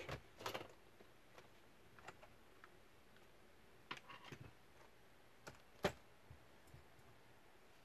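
A few scattered light clicks and knocks from a plastic Dell Inspiron laptop being turned over, opened and handled on a desk mat. The sharpest click comes about six seconds in, with near silence between the sounds.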